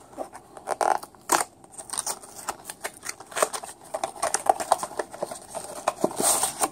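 Small cardboard box and plastic packaging of a diecast model car being handled and opened: scattered clicks, rustling and crinkling, with a longer rustle about six seconds in.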